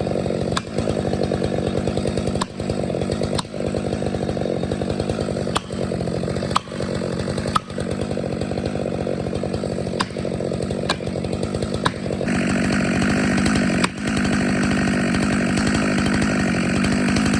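Chainsaw running under load, cutting into a tree trunk, with brief dips in level every second or two. About twelve seconds in it grows louder and brighter.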